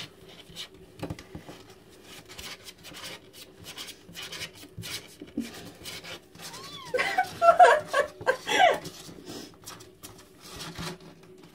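Kittens play-fighting in a cardboard box lined with newspaper: small claws scratch and scrabble on the cardboard and paper. A short run of high kitten mews and squeals comes about seven to nine seconds in and is the loudest part. A faint steady hum lies underneath.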